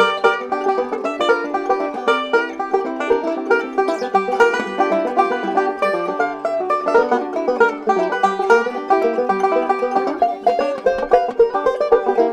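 Background music: a fast instrumental of quickly picked plucked-string notes.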